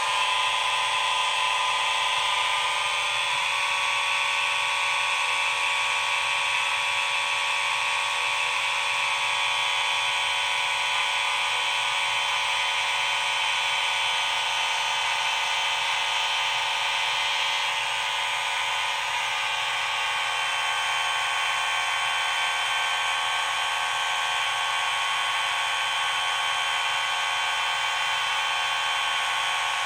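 Many fire alarm horns, a Simplex 4903-9219 among them, sounding together continuously in a dense, steady blend of electronic tones. The mix changes slightly about three seconds in and again around the middle as individual devices shift or drop out.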